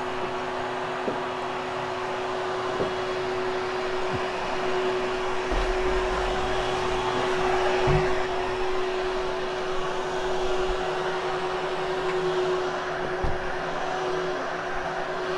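Hoover HushTone upright vacuum running steadily over carpet with a constant hum, used to vacuum and groom the pile; a few light knocks come as it is moved.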